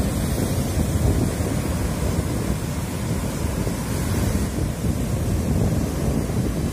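Surf washing onto the beach, with wind buffeting the microphone in a steady low rumble that rises and falls in gusts.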